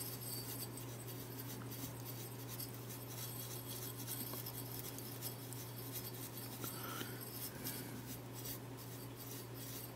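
Soft, scratchy brushing as a bristle paintbrush scrubs dust off a transistor radio's circuit board and metal chassis.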